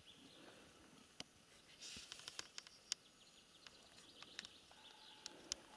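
Near silence: faint ambience with a few soft scattered clicks and a brief faint hiss about two seconds in.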